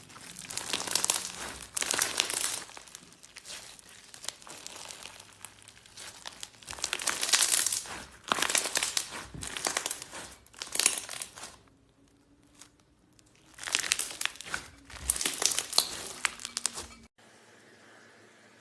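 Slime being squeezed and poked by hand, giving repeated bursts of crinkly crackling with many small clicks and pops. There is a short lull about twelve seconds in, and the sound cuts off about seventeen seconds in.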